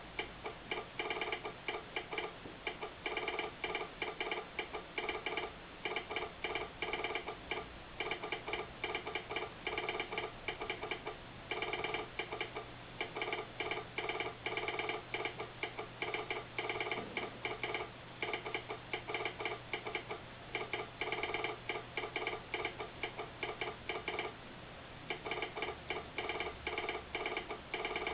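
Telegraph sounder clicking out Morse code in quick runs of clicks separated by short pauses: a railroad train order being sent.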